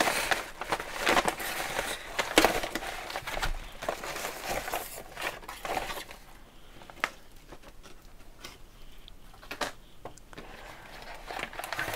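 Plastic poly mailer bag crinkling and rustling as it is handled and emptied, for about the first six seconds. Then it goes quieter, with a few light taps and rustles of cardboard-backed stamp and die packets being laid out.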